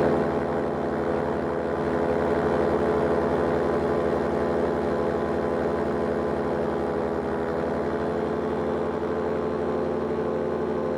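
Powered paraglider's engine and propeller running steadily in flight, an even drone with no change in pitch.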